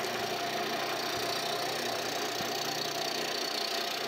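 Wood lathe running steadily while a hand-held turning tool cuts along a spinning maple blank.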